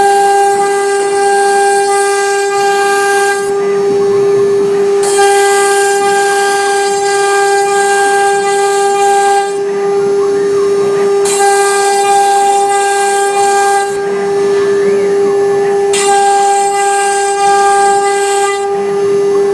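CNC router spindle running with a steady high whine. Four times, for about three to four seconds each, a loud hiss joins the whine as the bit cuts through MDF, stopping abruptly between passes.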